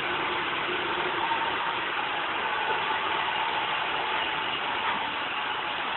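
Roomba robot vacuum running, a steady whir of its vacuum motor and brushes.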